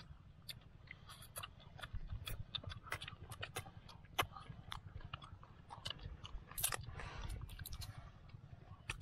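People chewing and biting roasted frogs, with many irregular sharp clicks and crunches as the small bodies are bitten and pulled apart by hand, over a low steady rumble.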